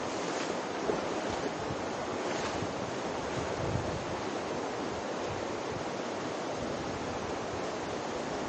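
Steady rush of the Virgin River's flowing water in the Narrows canyon.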